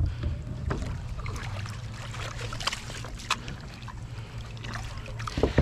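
Small boat being paddled across still water: paddle strokes with trickling and dripping water and scattered light knocks, over a low steady rumble.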